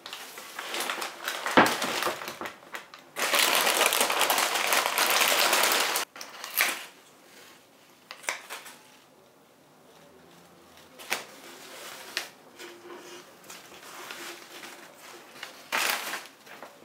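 Kitchen tap running for about three seconds, filling a glass vase, and then cutting off. Kraft paper rustles and scissors snip sunflower stems in a few sharp clicks.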